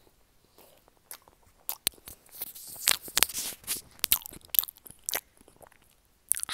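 Mouth sounds of chewing a mouthful of banana, picked up very close by an earphone cable microphone held at the lips: a run of soft, wet clicks and smacks that is quiet for the first second and busiest in the middle.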